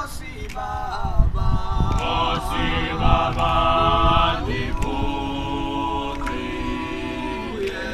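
A group of voices singing a cappella in harmony, with a few low thumps about a second in and again near the middle.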